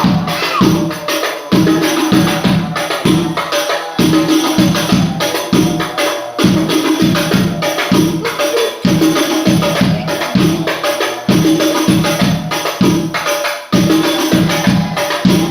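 Rebana frame drums played by hand in a brisk, interlocking rhythm accompanying sholawat, with many strokes a second and deep, pitched thumps under sharper slaps.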